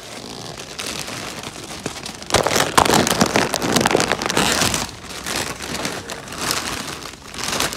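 Large plastic bags of Ruffles potato chips crinkling and rustling as they are handled. The crinkling is loudest from about two and a half seconds in to about five seconds, and swells again near the end.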